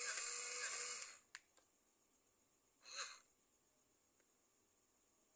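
Small electric motor in a homemade robotic helmet whirring for about a second, then a brief second whir about three seconds in.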